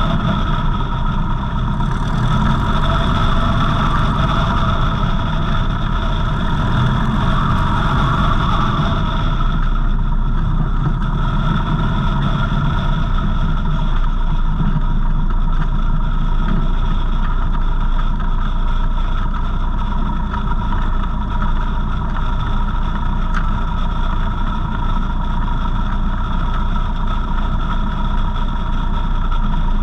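Savage Outback light aircraft's piston engine and propeller running steadily at low power while taxiing on grass. The sound eases slightly about ten seconds in.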